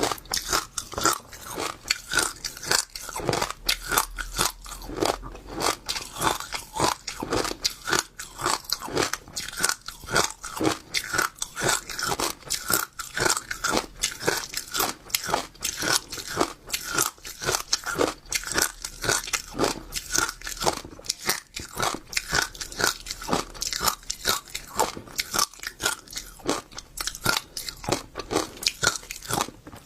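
A mouthful of crunchy seeds chewed close to the microphone: crisp crunches bitten several times a second, without a break.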